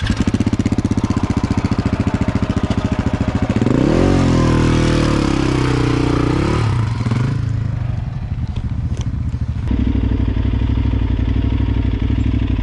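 Adventure motorcycle engine labouring up a loose rocky track. About four seconds in the revs rise and hold, wavering, for about three seconds, then drop back. From about ten seconds in a closer, steady engine note takes over as another bike rides off.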